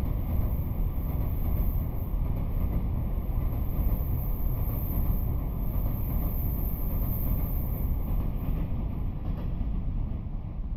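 Commuter electric train running, a steady low rumble of wheels and track noise with no breaks.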